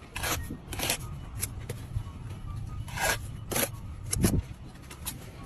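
A series of short scraping strokes, about six at irregular intervals, over a low steady rumble.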